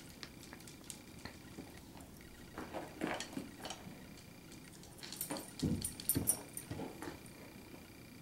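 A Bengal cat and a small Chihuahua scuffling in play on a vinyl floor and a cushioned dog bed: paws and claws patter and scrape in two bursts, about three seconds in and again from about five seconds, with a dull thump in the second burst.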